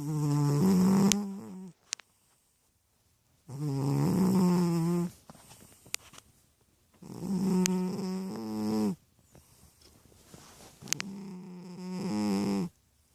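A chubby cat snoring, four long buzzing snores about three and a half seconds apart with quiet between them.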